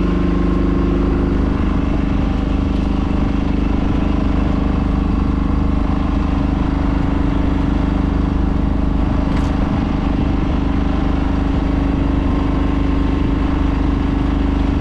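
A fishing boat's engine running at a steady speed: a constant low hum that does not rise or fall.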